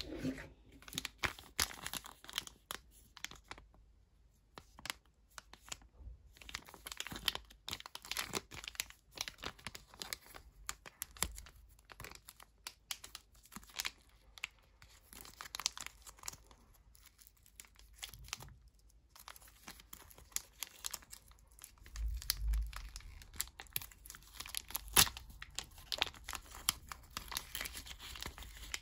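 Plastic surprise packet being torn open and crinkled by hand, a long run of irregular crackles and rustles with short pauses.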